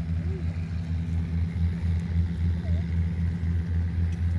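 Small motorcycle engine idling with a steady, low, pulsing hum.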